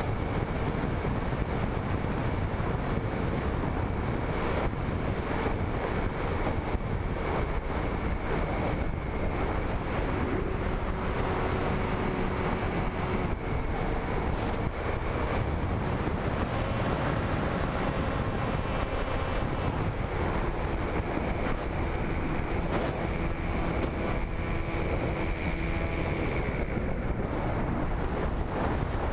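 Wind rushing over the microphone of a camera on board an RC flying wing in flight, with the faint whine of its motor and propeller, which steps up and down in pitch now and then with the throttle.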